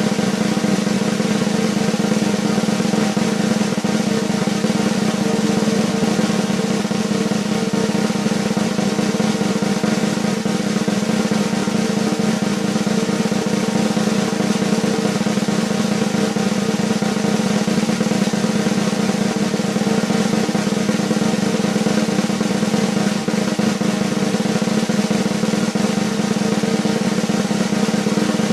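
Continuous snare drum roll, steady and even in loudness, with no accent or cutoff.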